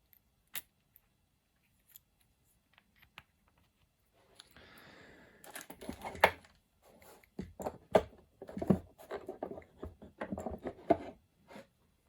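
Small metal lathe accessories being handled and set down: a few faint clicks, a brief rustle about four seconds in, then a quick run of clinks and knocks through the second half.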